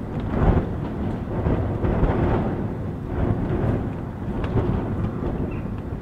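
Gusting wind and rain heard from inside a house: a low rumble of wind that swells and eases every second or two, with light taps of rain.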